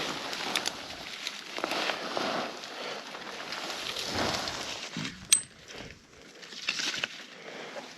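Footsteps and rustling in dry brush, with crackling twigs and leaves and a sharp click about five seconds in.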